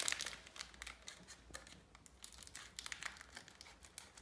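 A thin plastic wrapper crinkling and crackling in the hands as it is snipped open with small children's scissors: a faint, irregular run of crackles and snips.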